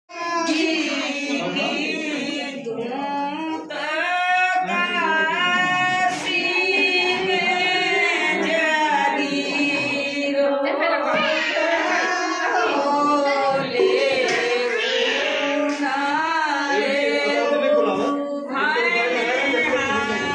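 Music: a song with a singing voice carrying a continuous, gliding melody.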